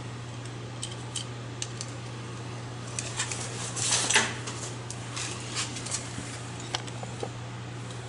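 Small clicks and rustling as the wires and plastic spade connectors of a 3-in-1 refrigerator compressor start kit are handled and fitted, loudest in a burst of rustling about four seconds in. A steady low hum runs underneath.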